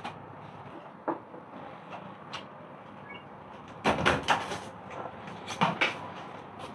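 Scattered hard knocks and clicks, single ones at first, then a quick cluster of several about four seconds in and another a little later, over a faint steady background hum.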